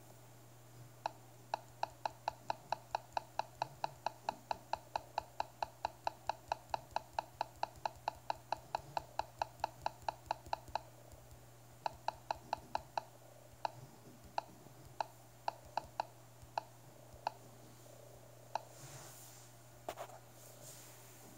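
Garmin nüvicam LMT-D's touchscreen key beeps: a rapid run of short identical beeps, about four or five a second for roughly ten seconds as a scroll arrow is tapped over and over, then scattered single beeps. Each beep confirms a touch on the screen.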